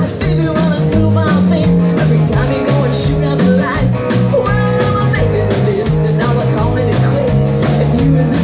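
Live rock and roll band playing loudly: drum kit, bass guitar, and acoustic and electric guitars, with a woman singing lead.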